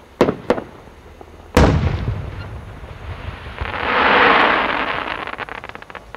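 6-inch aerial firework display shell: two sharp pops, then a heavy boom about a second and a half in. A dense crackle from its crackling pistil follows, swelling to its loudest around four seconds in, then thinning out into scattered crackles.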